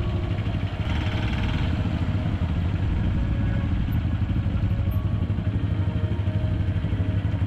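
Motorcycle engine running steadily with a low, fast-pulsing note.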